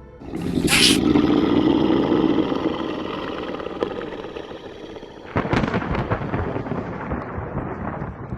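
Thunder, most likely a sound effect: a loud crack about a quarter second in that rolls into a long, fading rumble, then a second crack about five and a half seconds in that rumbles on.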